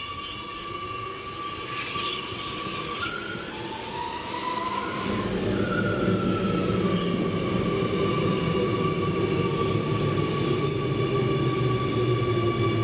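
Metro train on rails: a steady high wheel squeal with whining tones that glide upward, and a low rumble that grows louder about five seconds in.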